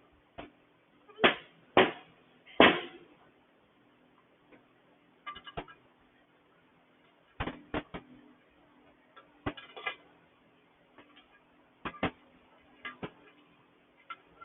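Small metal engine parts (valves, valve springs and retainers) clinking and tapping as they are handled and set down, in irregular knocks with three louder ones in the first three seconds and lighter clinks after, a few with a brief metallic ring.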